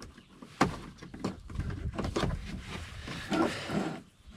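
Small objects being handled and rummaged through: irregular clicks and light knocks with some rustling.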